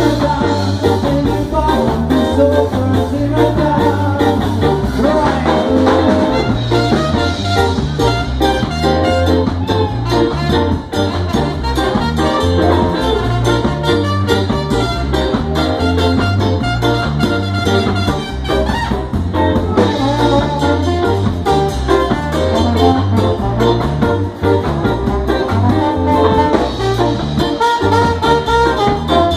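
Live ska band playing with a full horn section: saxophones, trumpet and trombone over keyboard, guitar and drums, with a steady beat.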